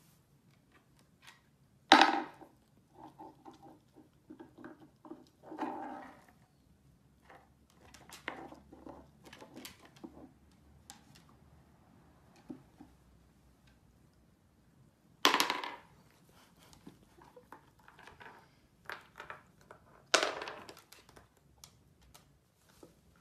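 A miniature dachshund moving about on a wooden floor: three short, sharp, loud sounds, the first about two seconds in and two more in the second half, among quieter scattered rustles and clicks.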